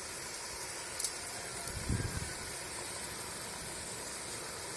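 Mixed vegetables steaming and sizzling in hot coconut oil in a kadai: a steady hiss, with a faint click about a second in and a soft knock about two seconds in.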